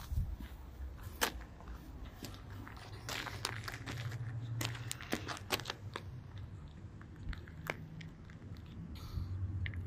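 Footsteps crunching on loose gravel and dirt, irregular crackly steps, with a faint low hum underneath.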